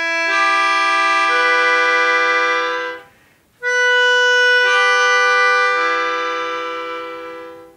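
Melodica building a three-note chord one note at a time, low to high, and holding it. After a short break it builds the same chord again from the top note down, holds it, and lets it fade away.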